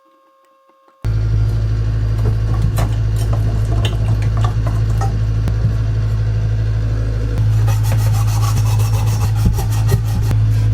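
Copper pipe ends being worked by hand, with rubbing and rasping strokes that turn into a fast even rhythm near the end, over a loud steady low motor hum that starts suddenly about a second in.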